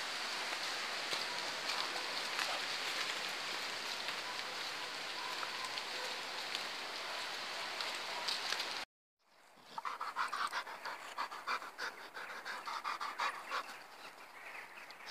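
A steady rushing hiss, then, after a brief dropout about nine seconds in, a dog panting rapidly in quick short breaths.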